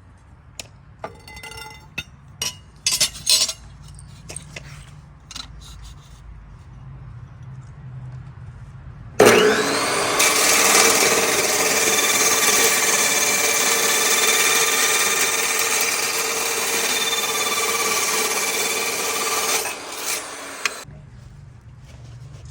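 A few sharp knocks and taps of steel being handled. About nine seconds in, a cold cut saw starts and cuts through 1x1-inch, 1/8-inch-wall square steel tube with a steady ringing whine for about eleven seconds, then stops suddenly.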